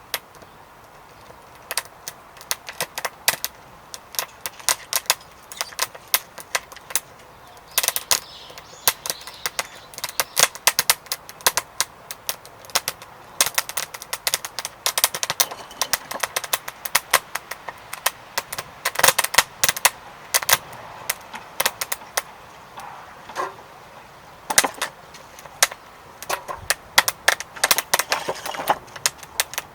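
Wood fire crackling and popping in a secondary-combustion fire pit: many sharp, irregular snaps, at times in quick clusters.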